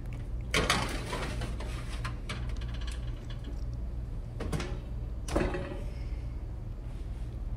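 Metal baking sheet set onto an oven rack with a few clatters as the rack slides in, then the oven door shut with a knock about five seconds in. A steady low hum runs underneath.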